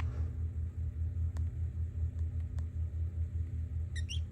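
Low, pulsing rumble of construction machinery working outside. A few faint clicks, and a brief burst of high budgie chirps near the end.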